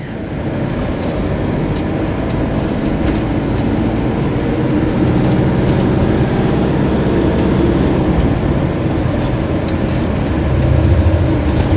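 Steady in-cab engine and road noise from a Fiat Ducato–based motorhome driving at low speed through a concrete underpass. The rumble grows louder near the end as two oncoming motorcycles pass.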